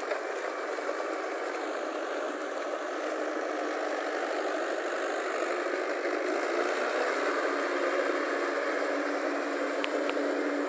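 Mahindra tractor's diesel engine running steadily as the tractor drives on cage wheels through deep mud. The sound is thin, with no deep bass.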